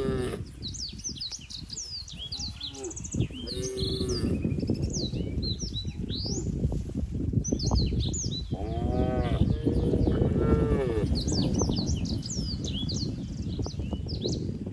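Cows mooing about four times, two longer calls near the middle, over many short bird chirps. A steady low rustling noise runs underneath.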